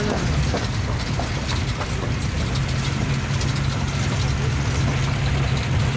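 Toyota Prado SUV heard from inside the cabin, driving on a rough gravel road: tyres crunching over loose stones with a constant patter of small clicks and rattles over the engine's low rumble. A steady engine hum comes in about halfway through.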